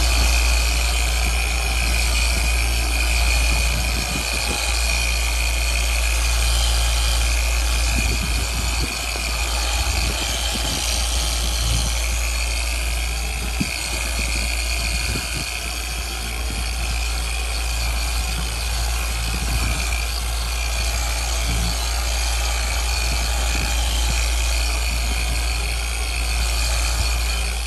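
Rupes random-orbital polisher with a cutting pad running steadily, buffing compound into the paint: a steady machine hum with a whine over it.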